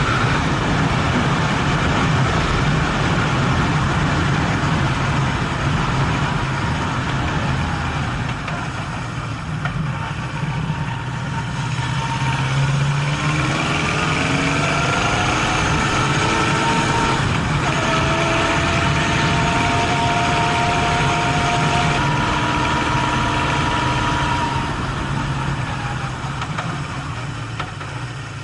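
Honda CB750's four-cylinder engine running. About halfway through it rises in pitch, drops suddenly, then holds steady.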